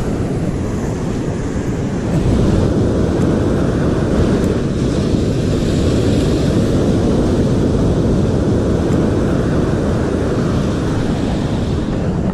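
Wind buffeting the microphone with a steady rumble, over the wash of breaking surf; it grows louder about two seconds in.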